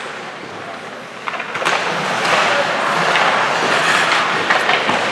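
Ice hockey play on a rink: skates scraping the ice and sharp clacks of sticks and puck, over a general arena din that grows louder about a second and a half in.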